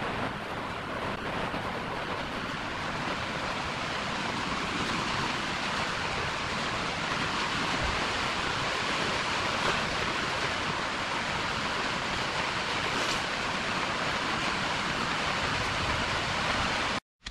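Steady, even rushing hiss of moving air or machine noise, which cuts off abruptly just before the end.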